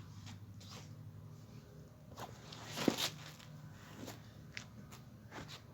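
Footsteps and a few light knocks, the loudest about three seconds in, over a low steady hum.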